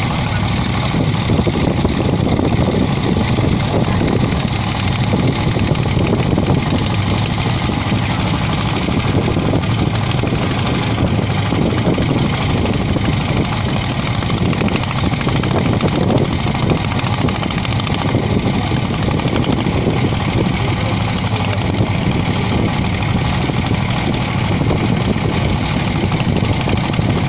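Motorboat engine running steadily under way, a constant low drone with no change in speed.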